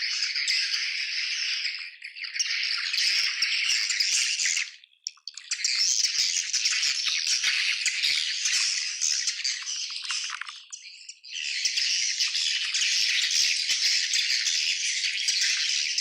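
A colony of swiftlets calling together in a dense, continuous, high rattling chitter. The chorus dips about two seconds in and breaks off for a moment about five and about eleven seconds in.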